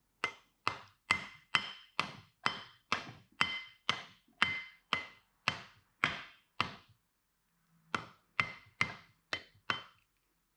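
Axe head being driven onto its new wooden handle with a steady run of sharp blows, about two a second, each leaving a brief metallic ring. The blows stop for about a second partway through, then about five more follow.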